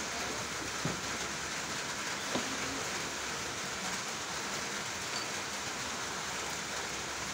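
Steady hiss of background noise, with a couple of faint clicks, about one and two and a half seconds in, from the handle of a 5-inch steel bench vise being turned to wind its greased screw and open the jaws.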